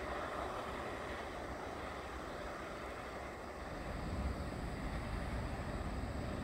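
Faint rumble of a freight train rolling away down the line, with wind buffeting the microphone.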